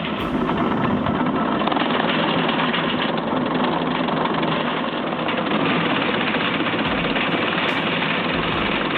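An engine running steadily, its level even throughout.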